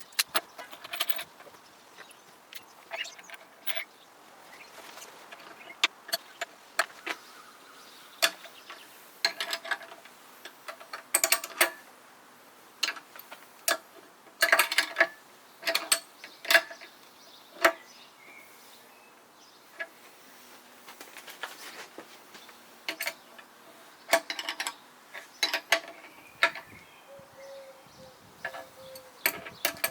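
Irregular clicks, clinks and knocks of metal tools and parts being handled during workshop reassembly, some with a short metallic ring.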